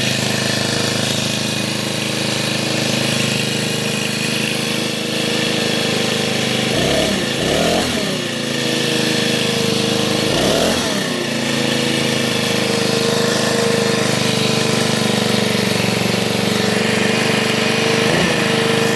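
Small four-stroke petrol leaf blower engine running on its first start, mostly idling steadily. Its pitch rises and drops back in two quick revs about seven seconds in, another about ten seconds in, and a slight one near the end.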